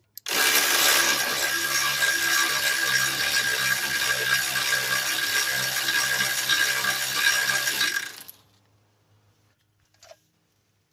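A ratchet driving a 24 mm socket on a front suspension nut: steady, loud metallic running noise for about eight seconds that stops suddenly, followed by a single small clink about ten seconds in.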